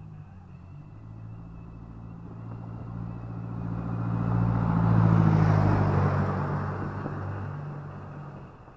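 A car passes close by on the street: its engine and tyre noise grow steadily louder to a peak about halfway through, then fade as it drives away.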